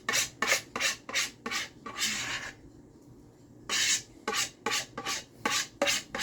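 Pastry brush swishing butter across sheets of phyllo dough in quick back-and-forth strokes, about three a second, pausing for about a second midway.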